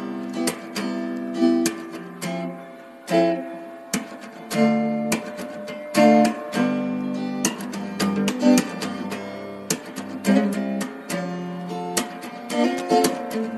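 Background music on acoustic guitar, plucked and strummed notes.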